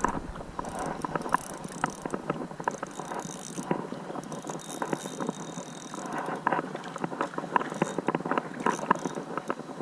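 Ultralight spinning reel being cranked, its gears giving a rapid, uneven clicking.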